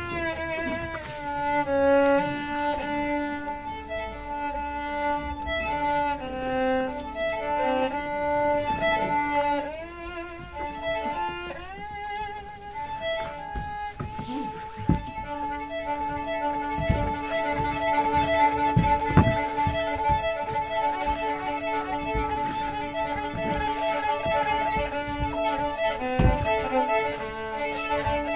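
Solo violin played live: a slow melody with slides and vibrato between notes, changing about halfway to a quicker figure of short repeated notes. Dull low thumps sound several times in the second half.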